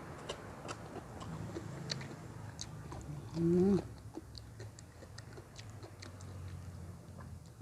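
Close-up chewing of crisp raw salad vegetables, with many scattered crunchy clicks. There is a short hum about three and a half seconds in.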